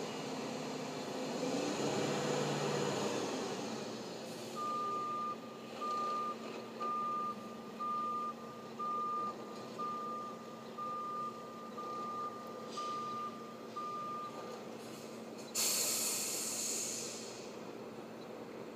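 A truck's reversing alarm beeps ten times, about once a second, as the truck backs up over the steady sound of its running diesel engine. Near the end a loud, short hiss of air, the truck's air brakes, is the loudest sound.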